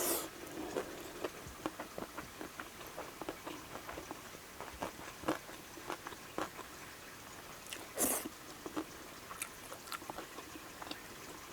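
Close-miked mouth sounds of a person eating: wet chewing with many small mouth clicks, and one longer breathy burst about eight seconds in.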